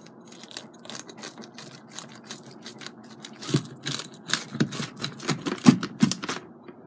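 Pizza cutter wheel rolling through a thin-crust pizza on its cardboard box, the crust crunching and crackling in quick irregular bursts. The crunches get louder and more frequent about halfway through.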